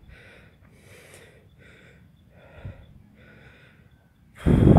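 A person breathing heavily close to the microphone, about two breaths a second. Near the end a loud rush of wind noise hits the microphone.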